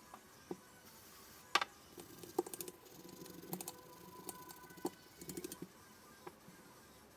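Metal parts of a PPSh-41 submachine gun being handled: scattered light clicks and taps, with a couple of quick runs of clicks in the middle.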